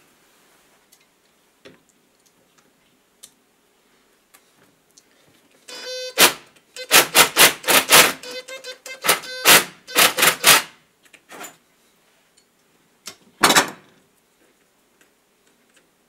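Clusters of loud, sharp metallic knocks and clatter from the stuck head of a Makita TD021D driver being worked on with a spanner clamped over a leather pad. The knocks come in quick runs from about six to eleven seconds in, with one more near the end.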